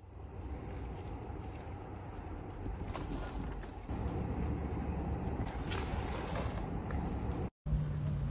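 Steady high-pitched trill of insects, crickets or katydids, that grows louder about four seconds in, over a low rumble. The sound briefly cuts out near the end.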